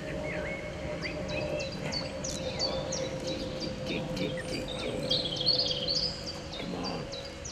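Small birds singing, a string of short, high, repeated chirping notes, over a steady low hum.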